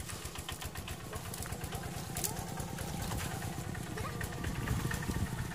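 Low rumble of an engine running in the background, with splashing and sloshing as a bamboo fish basket is scooped through a muddy puddle.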